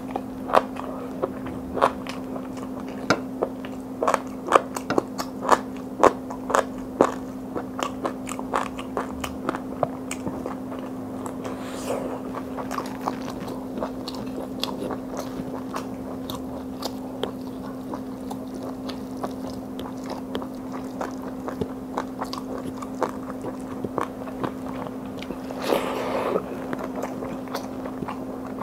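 Close-up eating sounds: crisp, crunchy bites into fried chicken, dense for the first several seconds and then thinning into chewing, with fingers scraping through fried rice on a plate. A steady low hum sits underneath.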